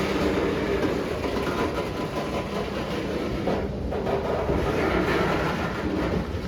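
A train rolling past, its wheels running on the rails with a steady clatter.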